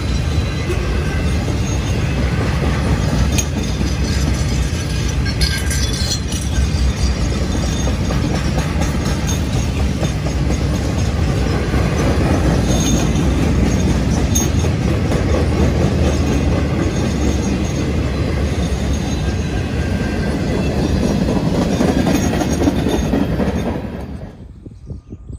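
Union Pacific rail train's flatcars, loaded with long welded rail, rolling past close by: a steady rumble and clatter of steel wheels on the track, with brief high wheel squeals now and then. The sound drops away suddenly near the end.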